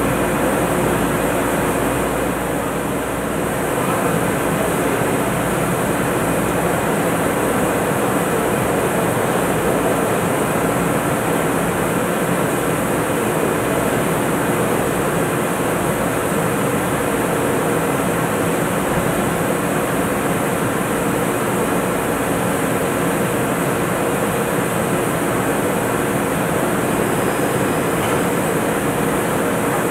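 Steady din of heavy machinery running on a drilling rig's drill floor: a dense hum of several steady tones over constant noise.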